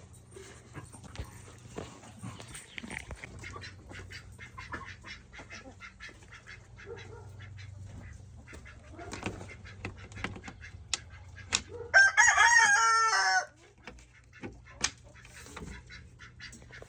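Chickens clucking in a coop, with a rooster crowing once about twelve seconds in, the loudest sound here. A low steady hum sits underneath, with scattered small clicks and rustles.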